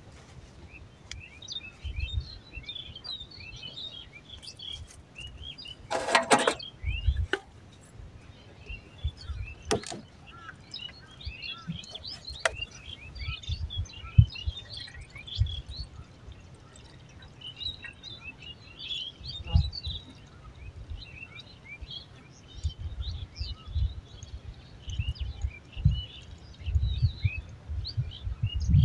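Small birds chirping and calling over and over, with irregular low thumps underneath and one brief louder sound about six seconds in.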